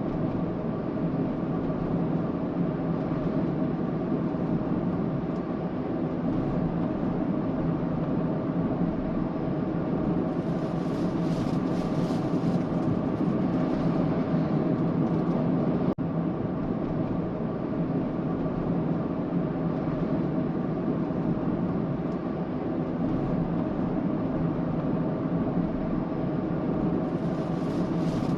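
A Suzuki Spacia running with a steady drone that carries several held tones, recorded for an abnormal noise whose cause has not been found. A brief high hiss comes in about ten seconds in and again near the end.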